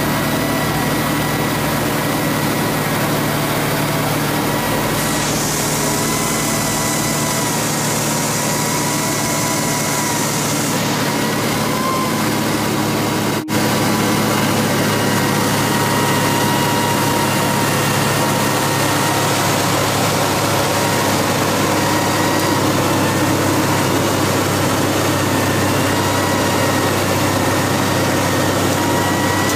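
Cessna 180's Continental O-470 six-cylinder engine and propeller running steadily in cruise, heard from inside the cockpit, with a brief break about halfway through.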